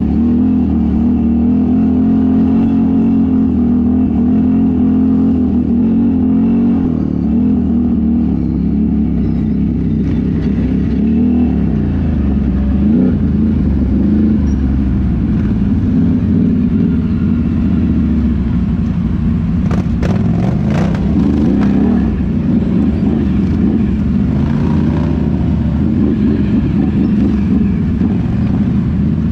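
An off-road vehicle's engine running close by, its pitch rising and falling as it is revved and eased off. A few sharp clicks or knocks sound about two-thirds of the way through.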